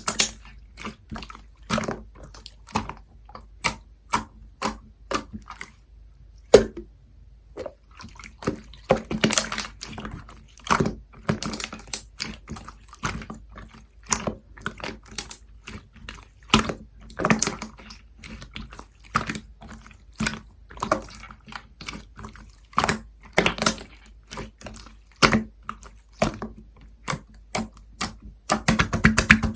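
Slime being squeezed, stretched and poked by hand, making irregular wet clicks, pops and squelches; near the end the pops come thick and fast as a steady crackle.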